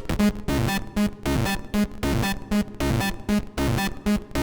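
Hard techno loop playing back: a distorted schranz kick drum on every beat, about two and a half a second, with short, low synth stabs from Serum 2 between the kicks.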